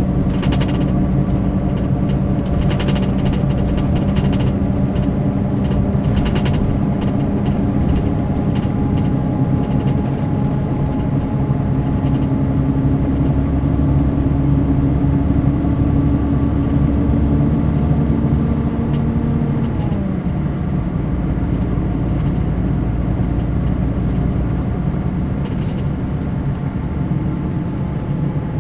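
Mercedes-Benz O500 RSD BlueTec5 coach's diesel engine running steadily, its note rising slightly and then dropping sharply in pitch about two-thirds of the way through before settling at the lower note.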